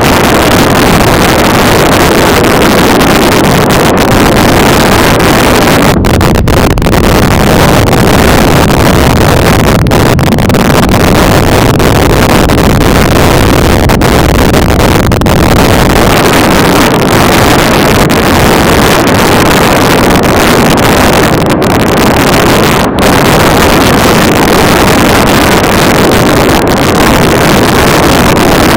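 Freefall wind rushing over the camera's microphone during a tandem skydive: loud, steady buffeting with no let-up.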